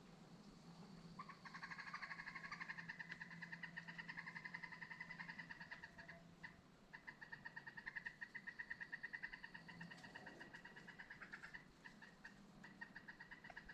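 Faint, rapid pulsing trill of a calling animal, several pulses a second, going on steadily from about a second in with a couple of short breaks.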